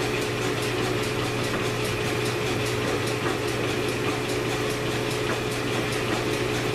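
1942 South Bend metal lathe running steadily, its spindle turning an AR15 bull barrel at about 475 RPM, with a steady hum and a fast, even ticking.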